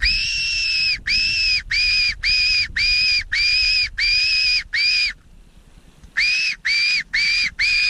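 Mouth-blown fox whistle calling foxes in: a string of loud, high squeals, each rising at the start then holding, the first the longest. About five seconds in it pauses briefly, then starts again with shorter, quicker squeals.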